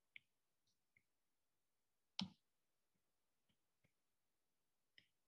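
Near silence with a few faint clicks of a stylus tapping on a tablet's glass screen during handwriting, one louder tap about two seconds in.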